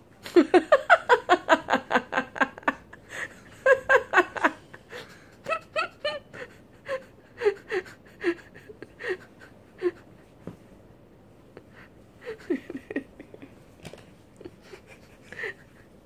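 A person laughing in quick repeated ha-ha bursts: a long run in the first few seconds, another around four seconds in, then scattered shorter chuckles.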